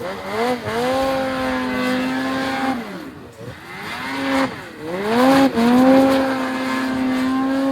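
Ski-Doo snowmobile's two-stroke engine revving hard twice: each time the pitch climbs quickly and holds at high, steady revs for a couple of seconds. The first run falls away about three seconds in, and the second builds from about four and a half seconds and is still held at the end.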